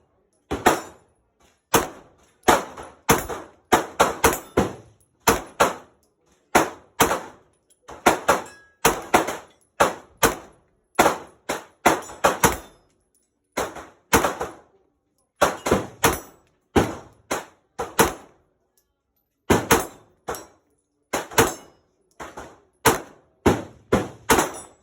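Semi-automatic rifle fired in quick succession, about two shots a second with a few short pauses, each sharp crack followed by a brief ringing tail.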